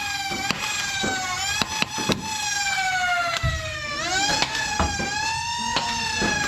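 Motorized foam-dart blaster flywheels spinning with a steady high whine. The pitch sags slowly and swoops back up about four seconds in, with sharp clicks of darts firing and hitting.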